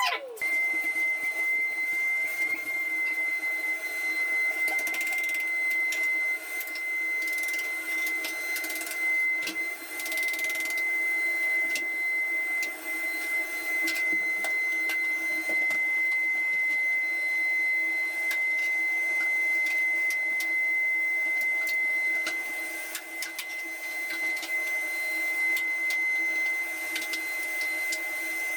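An electric motor running steadily with a constant high-pitched whine over a steady rushing noise.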